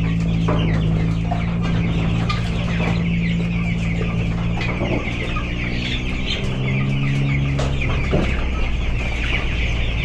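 A large flock of nearly three-week-old chicks peeping continuously, a dense chorus of short, high chirps.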